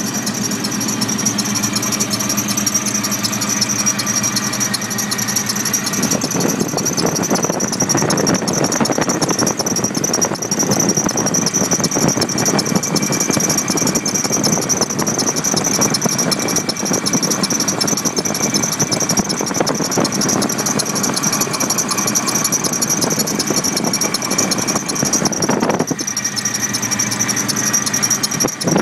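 Stillen supercharger belt on a Nissan Titan's V8 squealing continuously, a steady high-pitched tone over the running engine, just after the supercharger was installed. The engine sound grows fuller about six seconds in.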